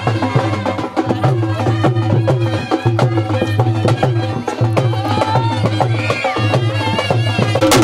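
Traditional Indian music with a steady, busy drum beat under a melody.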